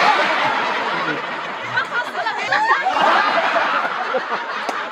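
Crowd of onlookers laughing and talking at once, a dense mix of many voices with no single speaker standing out.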